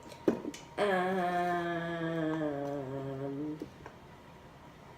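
A girl humming one long note for about three seconds, the pitch sinking slowly as it goes.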